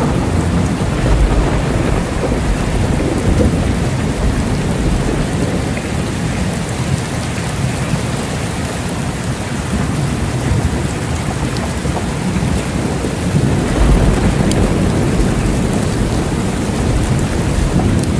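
Steady rain falling, with low rolling thunder rumbling underneath that swells about a second in and again about fourteen seconds in.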